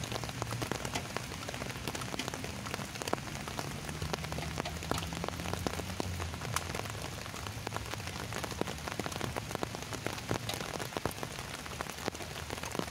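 Steady rain, with many single drops landing close by.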